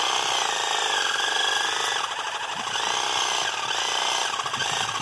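Ryobi cordless reciprocating saw cutting through a small tree trunk, running steadily with its pitch wavering slightly as the blade works the wood. Its user thinks the battery is running low.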